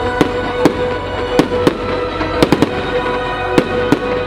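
Aerial fireworks shells bursting: about ten sharp bangs, some in quick pairs and triplets, with music playing underneath.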